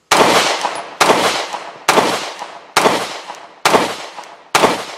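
FN Reflex 9mm micro-compact pistol fired six times at an even pace, about one shot a second, each report trailing off before the next.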